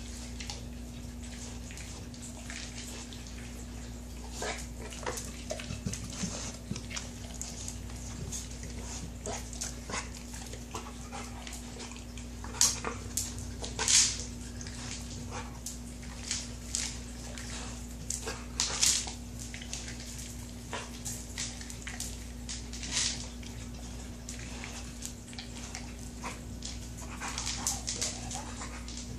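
Dog working a Kong Wobbler, a weighted hard-plastic treat-dispensing toy, across a hard floor: irregular clacks and knocks as the toy is nosed and tips, with kibble rattling inside it and the dog eating the kibble that drops out. A few louder clacks come around the middle.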